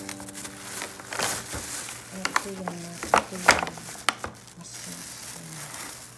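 Clear plastic bag crinkling and rustling as it is handled and pulled off an object, with a few sharp crackles in the middle.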